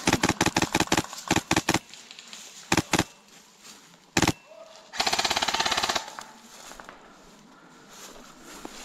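HPA airsoft rifle, an MTW Wolverine Forge, firing: fast strings of shots in the first two seconds, a pair about three seconds in, a single shot about a second later, then one full-auto burst lasting about a second.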